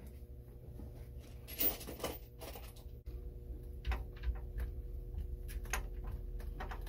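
Scattered light clicks and knocks of a 10 mm socket wrench being fitted to and worked on a nut on the back of a marine alternator, with a rustle of tool handling about two seconds in. A faint steady hum runs underneath.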